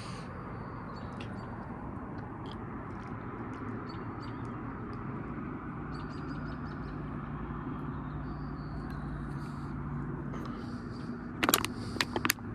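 Outdoor ambience: a steady bed of background noise with small birds chirping now and then, and a low steady hum from about halfway through. Near the end come a quick run of sharp clicks and knocks.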